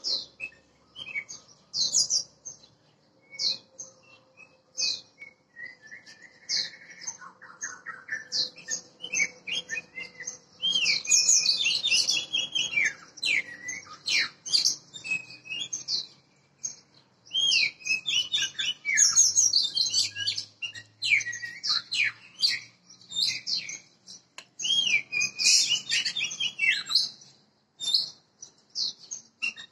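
Oriental magpie-robin singing a varied song of short whistles and chirps with quick rising and falling notes. The phrases come in dense bursts with brief pauses between them.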